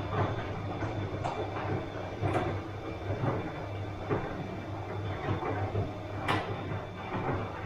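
Bosch front-loading washing machine running mid-cycle: a steady low hum from the motor and drum, with irregular soft knocks and swishes, about one a second, as the laundry tumbles.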